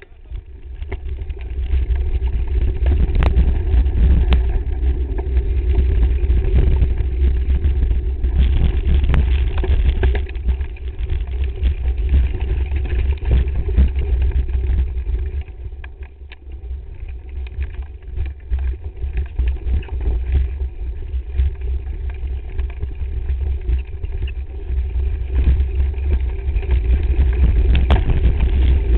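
Mountain bike descending a rocky gravel track, picked up by a camera mounted at the handlebars: a continuous low rumble of wind and trail vibration with sharp knocks over the bumps. It eases off for a few seconds past the middle, then builds again.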